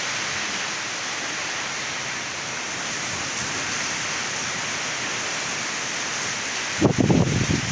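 Steady heavy rain falling, an even hiss. About seven seconds in, a louder, broken low sound cuts in over it.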